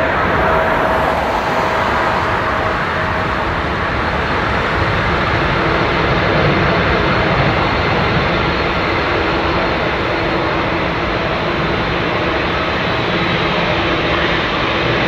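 Jet airliners' engines running at taxi power: a steady rushing noise with a faint engine whine. A higher whine fades in the first few seconds, and a lower, steady whine comes in about five seconds in.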